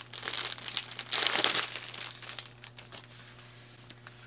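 Small plastic bags of diamond painting drills crinkling as they are handled, loudest in the first two seconds, then only faint rustles.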